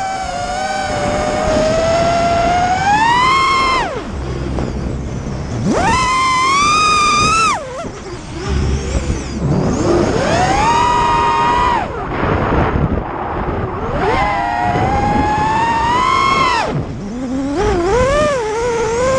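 Brushless motors and propellers of an FPV racing quadcopter (Emax RS2 2206 1600 kV motors on 6S) whining in flight, the pitch following the throttle. The whine climbs and holds for a second or two, then drops sharply as the throttle is cut, about four times.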